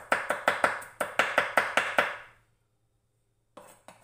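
Kitchen knife mincing garlic on a wooden cutting board: quick, even chops at about six a second, stopping about two seconds in, with a faint brief sound near the end.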